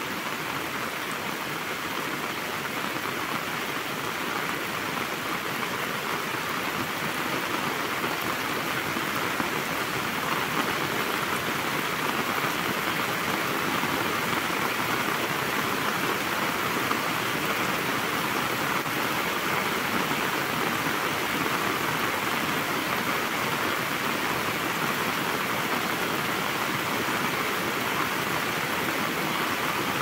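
Heavy rain falling steadily on gravelly ground and leaf litter, an even dense hiss of drops that grows a little heavier about ten seconds in.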